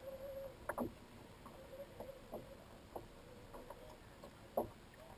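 Small plastic toy spincast reel on a kiddie fishing rod being cranked while fighting a fish: irregular clicks and ticks with a faint whine that comes and goes, and one louder click about four and a half seconds in.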